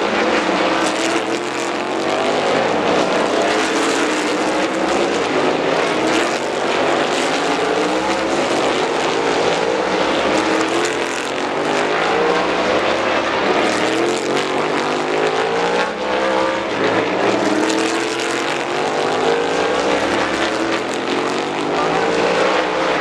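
Several race car engines lapping a road-course corner, revving up again and again in rising sweeps as the cars accelerate out of the turn and pass one another.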